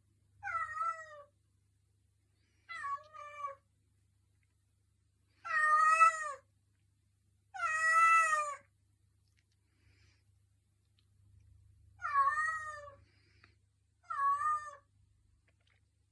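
Domestic cat meowing six times, each meow under a second with its pitch sliding down at the end; the two middle meows are the loudest and longest.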